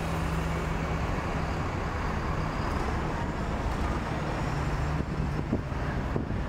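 Road traffic: buses and cars driving by on a city street, with a steady low engine hum.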